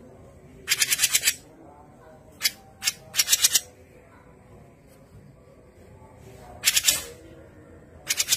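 Cucak jenggot (grey-cheeked bulbul) giving short bursts of harsh, rapid chattering notes, each about half a second long, about six bursts with pauses between them.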